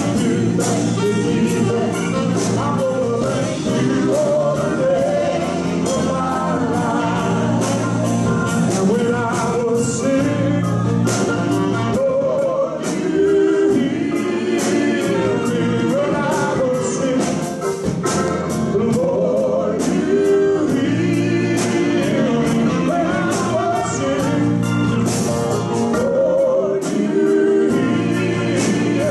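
Live gospel song: a man and a woman singing into microphones, backed by a band of keyboards, piano, bass guitar and drums keeping a steady beat.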